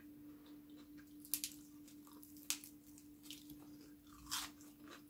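Fresh green vegetable stem being snapped and bitten: two sharp crisp snaps about a second apart, then a louder crunchy bite near the end, over a faint steady hum.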